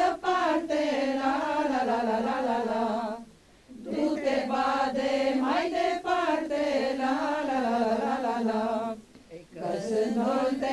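A group of women singing a Romanian folk song unaccompanied, in long lines with a 'la la la' refrain. There are two short breaks between lines, one about three seconds in and one near the end.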